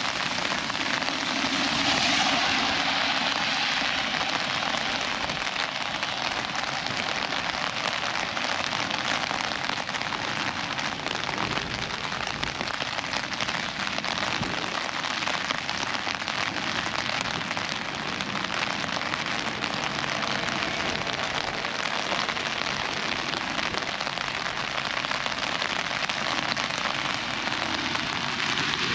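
Rain falling on an umbrella overhead: a dense, steady spatter of drops, with the hiss swelling a little about two seconds in.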